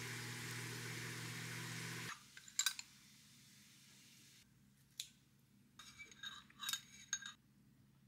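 Food sizzling in a frying pan over a low hum for about two seconds, cutting off suddenly, then a few light clinks of cutlery and dishes.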